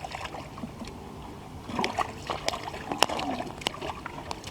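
Water splashing and sloshing in a shallow pond, with a few sharp clicks or knocks in the second half.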